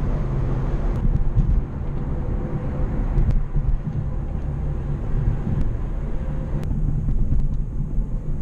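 BMW M340i driving on a wet road: a steady low rumble of its turbocharged straight-six and the tyres, with a few faint ticks.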